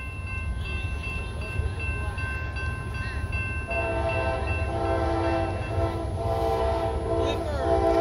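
Diesel locomotive air horn sounding, starting about four seconds in as a long blast followed by two shorter ones, over a steady low rumble.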